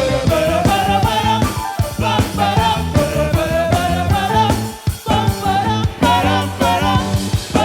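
Upbeat gospel praise band music with a steady beat, a repeating bass line and a melody line over it.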